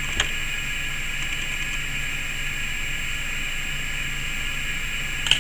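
Steady background hiss with a low hum, broken by two short light clicks, one just after the start and one near the end, as the nitinol wire is handled against the plastic water cups.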